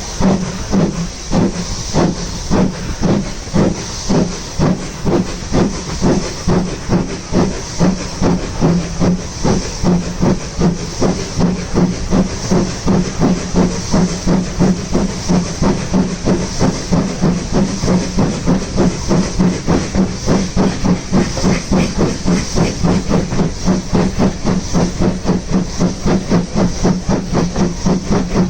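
Steam locomotive 46512, an LMS Ivatt Class 2MT 2-6-0, working hard with its exhaust beats quickening steadily as it accelerates, over a constant hiss of steam.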